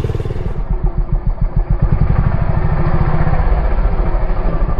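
Dirt bike engine running at low revs, a rapid, uneven chugging that swells and eases with small blips of throttle.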